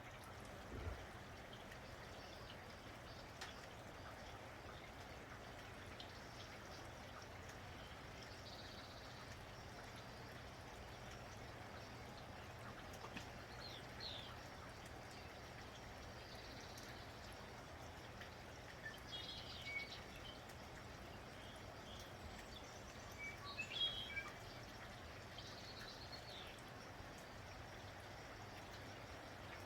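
Steady, faint rain falling, with small birds chirping now and then: short high chirps scattered through, most of them in the second half, and an occasional drip.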